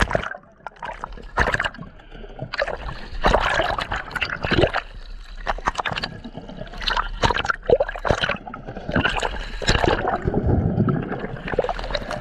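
Water splashing and sloshing, with irregular sharp knocks and clatters throughout.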